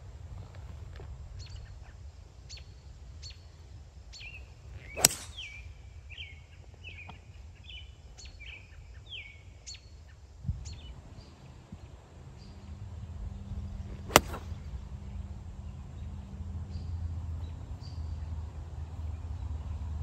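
Two sharp golf club strikes on a ball, about nine seconds apart, the first with a short ring after it. Birds chirp in quick short calls between them, over a low steady outdoor rumble.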